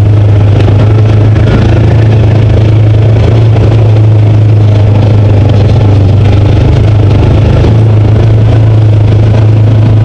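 Side-by-side UTV's engine running steadily as it drives along a dirt trail, a loud, even drone heard from inside the cab.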